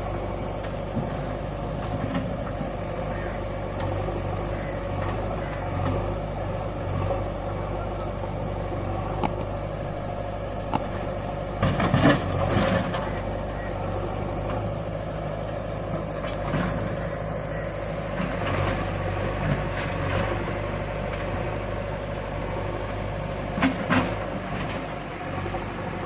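JCB 3DX backhoe loader's diesel engine running steadily while loading a tractor trailer. Sharp knocks and a loud clatter come about halfway through and a double knock near the end, from the backhoe bucket dumping soil into the trailer.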